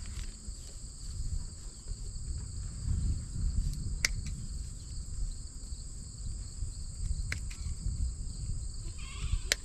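Steady high-pitched insect chorus in two even bands, over a low uneven rumble, with three sharp clicks about four, seven and nine and a half seconds in.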